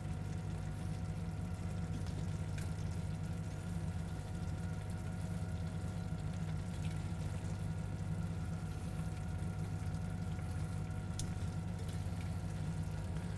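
Steady low background hum in a kitchen, with a few faint soft ticks.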